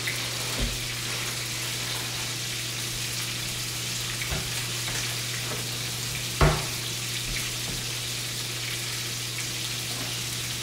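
Rack of lamb searing in a frying pan on a gas burner: a steady sizzle over a low hum. There are a few knocks, the loudest a thump about six and a half seconds in.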